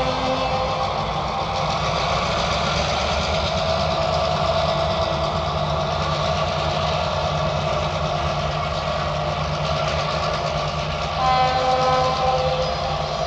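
Diesel locomotive of a freight ore train running steadily. Its horn sounds for about a second near the end, and a blast from it is just ending as the sound begins.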